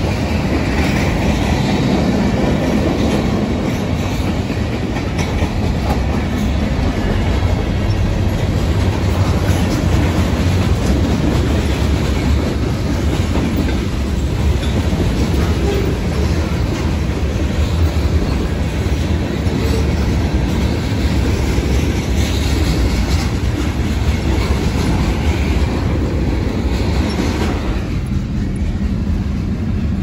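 Manifest freight train's cars (tank cars, covered hoppers, boxcars) rolling past at a steady speed: a continuous rumble of steel wheels on rail with a clickety-clack over the rail joints.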